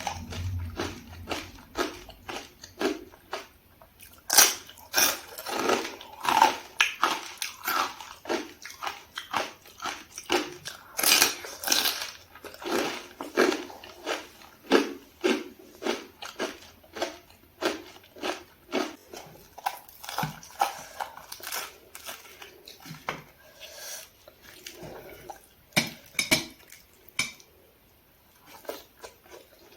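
Close-miked eating sounds: chewing with a quick run of short mouth smacks and clicks, two or three a second, easing off briefly near the end.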